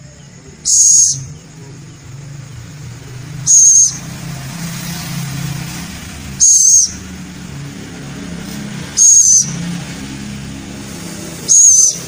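Young scops owl (celepuk) calling: five short, shrill, high-pitched calls, each about half a second long, repeated every two and a half to three seconds over a low hum.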